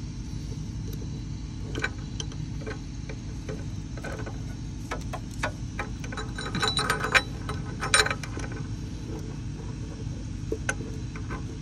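Scattered metallic clicks and clinks of a combination wrench being fitted onto a car's upstream O2 sensor, with a cluster of louder clinks about seven to eight seconds in, over a steady low hum.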